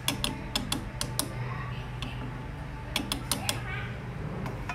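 Wooden chopsticks stirring soup in a stainless steel pot, knocking against the pot's side in quick runs of sharp clicks: one run in the first second, another about three seconds in, and a single knock at the end. A steady low hum runs underneath.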